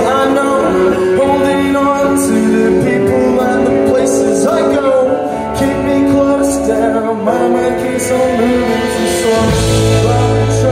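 Live band playing: a male voice singing over electric guitars, bass guitar and drums, with cymbal crashes, and a deep held bass note coming in near the end.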